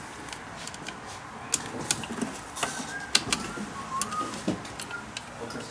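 Scattered sharp clicks and taps of hand tools and parts being handled during fuel-pump work, the loudest about three seconds in, with a few faint short chirps between them.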